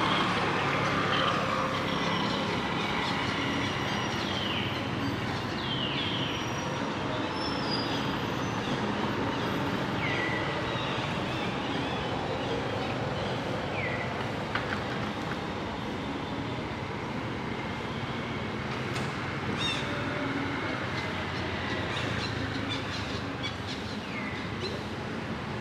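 Steady outdoor background noise, with short falling chirps every few seconds.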